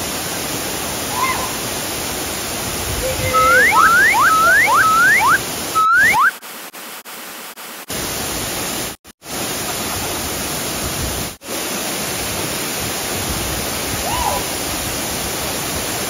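Steady rushing of a large waterfall crashing into its plunge pool, heard from close in its spray. A quick run of five rising whistle-like notes comes around the middle, and the water sound breaks off briefly a few times.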